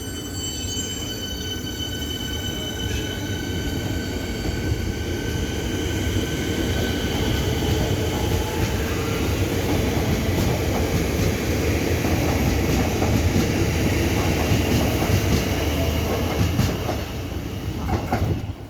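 Siemens Nexas electric multiple unit pulling away: the traction motors whine in several steady high tones that fade over the first half. Under them, the rumble of wheels on rail builds and grows louder as the train gathers speed past the platform, then drops away sharply at the very end.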